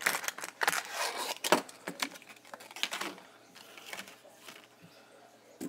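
Irregular clicks, taps and light rustling from a fidget spinner being handled and set down on a tabletop, busiest in the first three seconds, then fainter.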